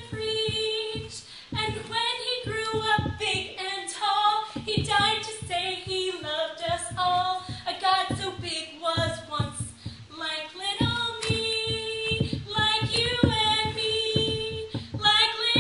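A girl singing a children's Sunday-school action song, with a steady held note underneath for much of it.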